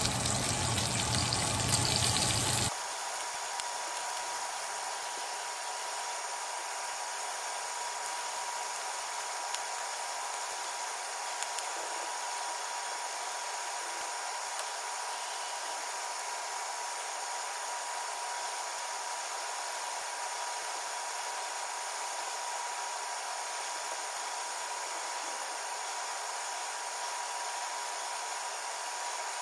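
Bacon sizzling in a hot cast-iron skillet: a steady frying hiss with faint scattered pops. It is louder for the first couple of seconds, while tongs turn the strips, then drops abruptly to a quieter, even sizzle.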